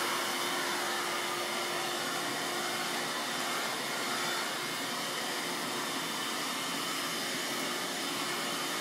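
Lightweight Dirt Devil vacuum cleaner running steadily, an even whirring hiss of its motor and airflow.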